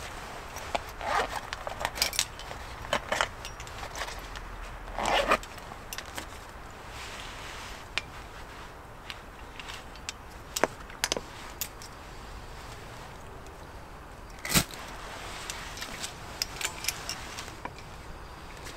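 Intermittent clinks, scrapes and rustles of camp cooking gear being handled, with a longer rustle about five seconds in and a sharp click near the three-quarter mark.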